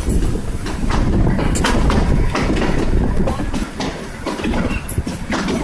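Shimla toy train, a narrow-gauge mountain railway, running along the track: a steady low rumble with irregular clicks and knocks of the wheels on the rails.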